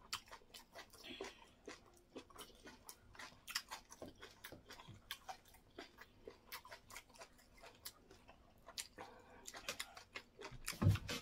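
Close-up mouth sounds of people eating semolina fufu with egusi soup by hand: chewing with many small, wet lip smacks and clicks. A louder low thump near the end.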